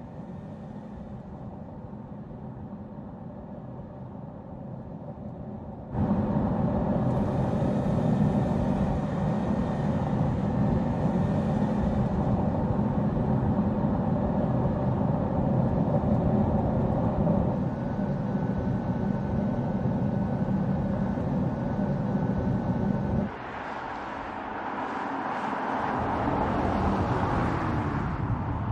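Volkswagen Passat estate driving: steady engine and tyre noise, suddenly louder about six seconds in. Near the end it drops away, and the noise of the car approaching swells up.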